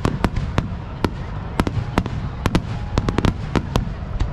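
Fireworks display: aerial shells bursting in rapid, irregular succession, with sharp cracks several times a second over a continuous low rumble of booms.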